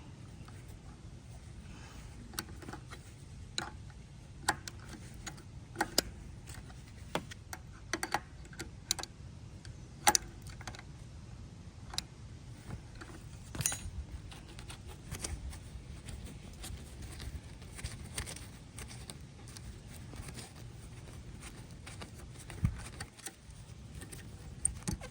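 Metal hand tools clicking and clinking as they are handled and sorted, in irregular sharp taps, over a steady low hum.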